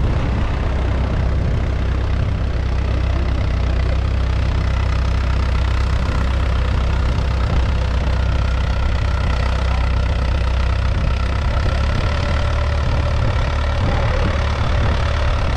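A small farm tractor's diesel engine runs steadily under load while its rear wheels spin in soft beach sand.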